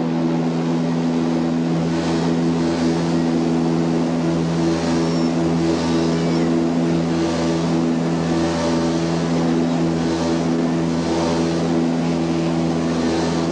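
Antonov An-24 turboprop engines and propellers running steadily: a constant drone with several fixed low tones over a rushing noise.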